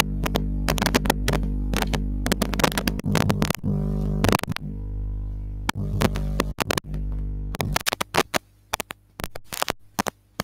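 Steady low electrical hum with overtones and a stream of sharp clicks and knocks from handling objects; the hum cuts off suddenly about three-quarters of the way in. Near the end come the taps and scratches of chalk writing on a chalkboard.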